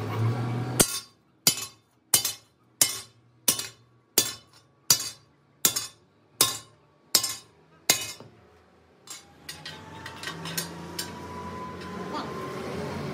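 Hammer striking metal in a steady series of about eleven sharp, ringing blows, roughly one every 0.7 seconds, which stop about two-thirds of the way through.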